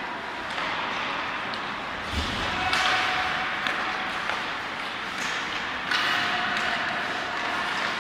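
Ice hockey play in a rink: a steady hiss of skates and arena noise broken by several sharp clacks and knocks of sticks and puck, the loudest a low thud about two seconds in, like the puck or a player hitting the boards.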